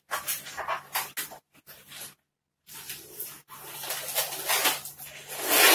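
Green latex modelling balloon being twisted and rubbed by hand, giving a run of rubbing, squeaking strokes. The sound breaks off briefly about two seconds in.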